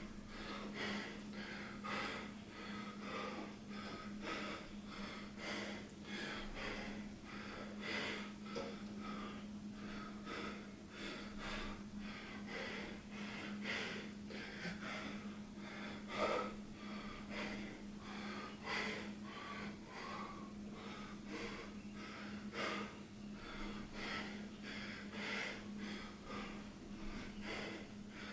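A person breathing heavily and fast, about one breath a second, laboured because he is training while sick. A steady low hum runs underneath.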